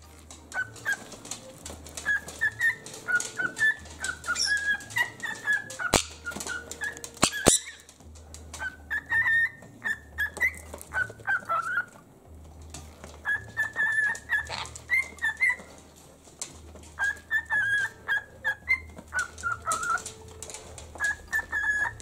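Cockatiel whistling its song in short phrases of warbling notes, pausing a few times. Two sharp clicks about six and seven and a half seconds in.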